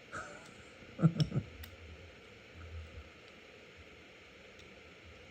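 Small steel pistol parts being handled, with a few faint clicks. A brief voice sound comes about a second in.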